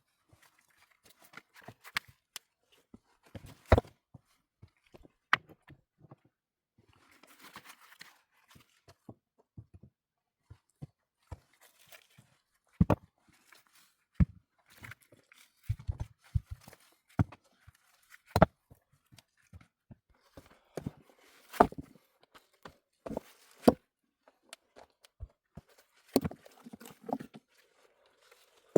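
Irregular sharp knocks and clacks with short rustling scrapes between them, the sound of building materials such as stone and wood being handled and set down.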